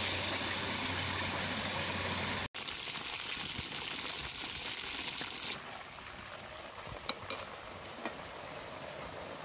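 Chicken pieces deep-frying in hot oil in a large aluminium wok, an even sizzling hiss, loudest at first as the raw marinated pieces go into the oil, then cutting and returning softer. Near the end a few sharp clicks as metal tongs knock against the pan.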